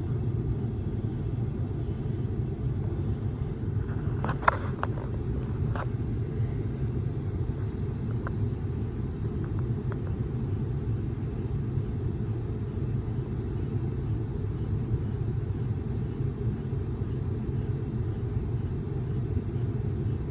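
Steady low rumble of a car on the move, heard from inside the cabin, with a few sharp clicks about four and a half to six seconds in.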